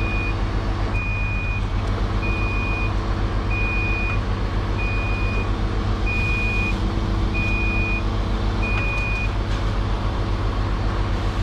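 Truck-mounted crane at work: the truck's diesel engine runs steadily under a high, even warning beep that repeats about once every 1.3 seconds, eight times, and stops about nine seconds in.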